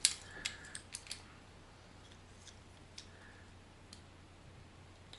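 Plastic parts of an action-cam clamp mount clicking as they are pressed and worked together: a few sharp clicks in the first second, then faint scattered ticks.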